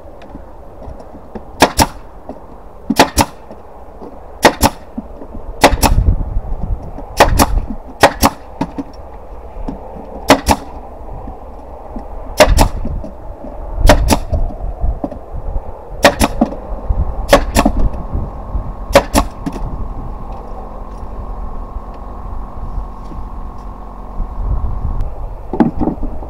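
A pneumatic nail gun fires about a dozen times, sharp separate shots a second or so apart, driving nails into timber. About two-thirds through, a steady motor hum starts and runs until shortly before the end: the air compressor refilling.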